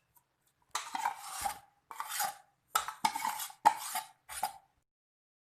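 A spoon scraping sweetened condensed milk out of a tin into a bowl of lemon filling, in five short scraping strokes.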